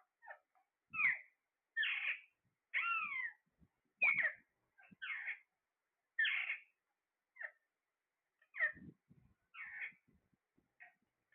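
A parrot making a string of short, shrill calls, about one a second. Several calls slide up and then down in pitch, sounding like meows.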